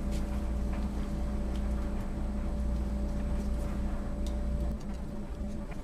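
A steady machine hum, which partly cuts out near the end, under scattered light clicks as the clamps holding the replacement check valve on the ejector pump's discharge pipe are tightened.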